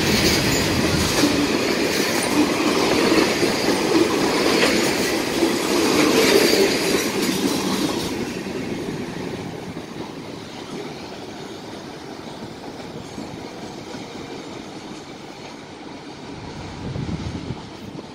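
Freight train of tank cars rolling past, its wheels clacking over the rail joints. It is loud for about eight seconds, then fades as the train moves away.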